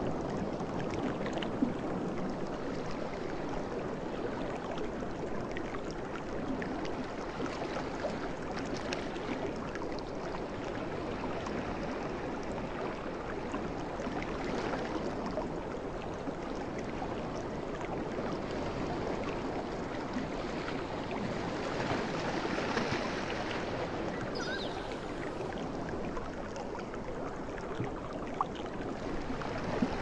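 Sea waves washing onto a shore: a continuous rush of water that swells and eases a few times.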